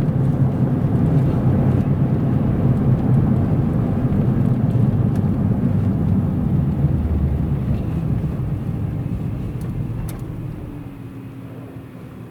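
Car running down the road, heard from inside the cabin: a steady low rumble of engine and tyres that dies down over the last few seconds.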